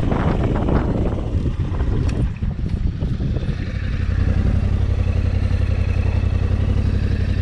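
Royal Enfield Himalayan single-cylinder motorcycle engine riding slowly on a gravel track with some clatter, easing off and coming to a stop about four seconds in, then idling with a steady low, even beat. A second motorcycle's engine idles alongside.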